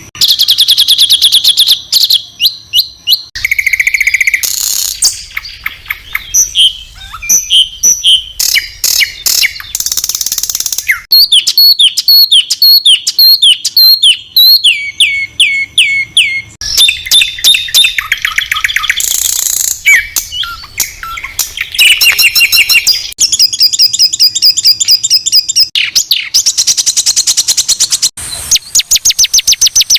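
A loud, edited run of songbird song for tutoring competition birds: harsh, rapid-fire rattling notes and fast trills alternating with high whistled phrases, the song changing abruptly every second or two.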